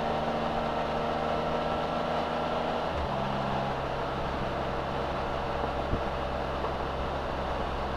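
Can-Am Spyder three-wheeled motorcycle running at a steady cruise, its engine note mixed with wind and road noise; about three seconds in, the engine note steps down to a lower pitch.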